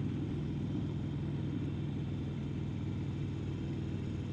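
Harley-Davidson Sportster XL1200N's air-cooled V-twin engine running at a steady cruising speed, heard from the rider's seat, with its pitch unchanging.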